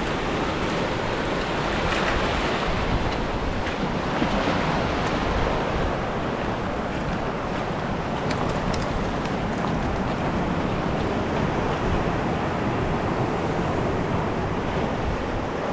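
Sea surf washing steadily against a rocky shore, with wind rumbling on the microphone.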